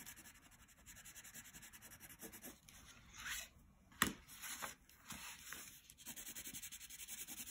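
Green wax crayon rubbing on paper in quick back-and-forth strokes, colouring in a leaf, faint. A single sharp tap about four seconds in, as the crayons are handled and the paper is turned.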